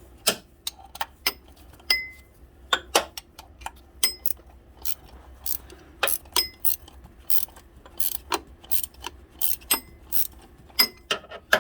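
Ratchet wrench clicking in quick, irregular strokes, a few clicks a second, while loosening a 15 mm bolt.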